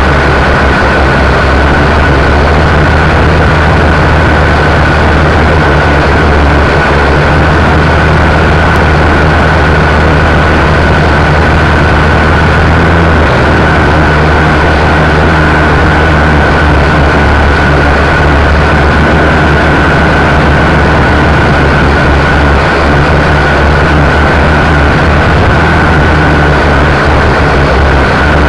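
Quadcopter's electric motors and propellers whirring steadily in flight, heard close from the onboard camera, with a steady high whine over a low hum.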